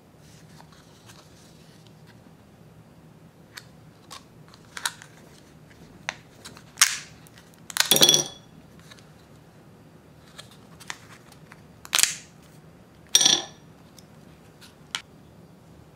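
Thin plastic candy-kit mold being flexed and pressed, crackling and clicking as the set chocolate discs pop free, with two louder sharp clacks with a short ring, typical of the discs dropping onto a ceramic plate.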